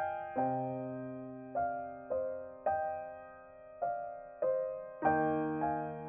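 Background piano music: a slow, gentle melody of single struck notes and chords, each one dying away before the next.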